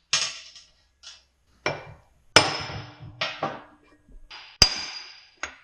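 A string of sharp metallic clanks and knocks, about eight, each with a short ring, as steel tools and parts are struck and handled during removal of the transfer case's output flanges. The loudest come about two and a half seconds in and near the end.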